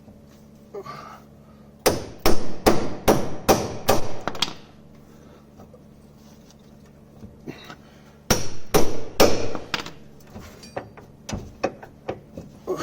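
Hammer striking a ball joint splitter to break a seized suspension ball joint free of the hub: sharp metal blows in a quick run of about eight, a pause of a few seconds, then another run followed by lighter scattered taps.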